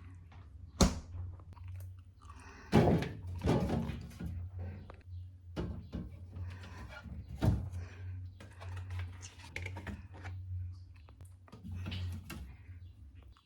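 Containers and items being handled and set down in a fridge: irregular knocks, thunks and clatter, with a steady low hum underneath.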